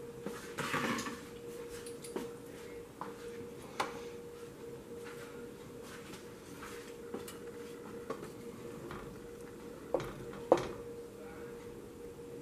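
Light clicks and knocks of kitchenware around a stainless steel pot, over a steady faint hum. The two sharpest knocks come close together near the end, as a wooden spoon goes into the pot of yogurt sauce.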